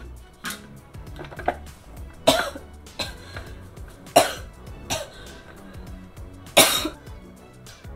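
A woman coughing several times in sharp fits, the hardest about two, four and six and a half seconds in, irritated by the freshly ground fried chilies she is leaning over.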